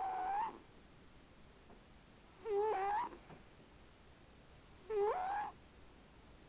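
Cat snoring, with a short squeaky whistle on each breath about every two and a half seconds. Each whistle jumps up in pitch partway through.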